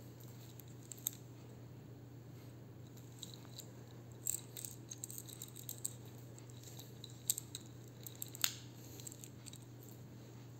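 Faint clicks and light metallic jingling of a wristwatch's metal link bracelet being handled and turned in a gloved hand, busiest in the middle and loudest in two sharper clicks late on, over a steady low hum.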